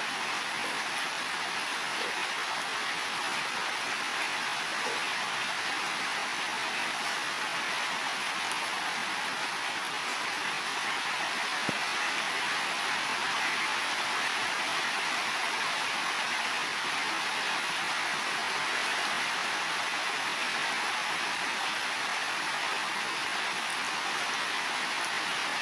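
Heavy rain falling steadily on building roofs: an even hiss with a few faint single drips standing out.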